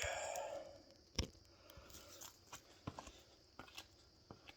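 Light handling noise: a short rustle at the start, then scattered sharp clicks and taps, the clearest about a second in.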